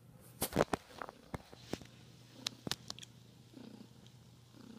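Domestic cat purring steadily while being stroked. Sharp clicks and rustles from handling come over it, the loudest about half a second in.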